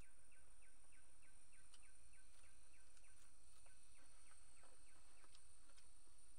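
Faint rural outdoor ambience with a rapid, evenly repeated chirping call: short falling chirps about three a second, over a thin steady high whine.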